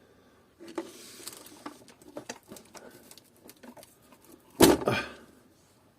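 Scattered light clicks and taps of small parts and hand tools being handled on a workbench, then one loud thump a little before the end.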